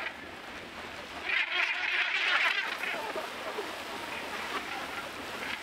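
Northern gannets calling harshly as they jostle on the water, with splashing and the wash of the sea. The loudest stretch of calling comes about a second and a half in and lasts a little over a second.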